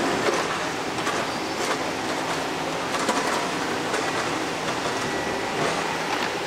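Daewoo 255LC-V crawler excavator running under load as it digs and lifts soil, the diesel engine and hydraulics making a steady noise, with scattered metallic clanks from the bucket and boom linkage.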